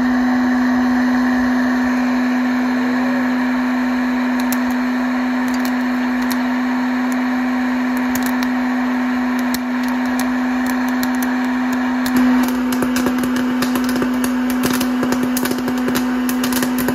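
Hot-air popcorn maker running with a steady motor hum and rushing air, as corn kernels begin to pop: scattered pops a few seconds in, coming thick and fast in the last few seconds as the popped corn spills out.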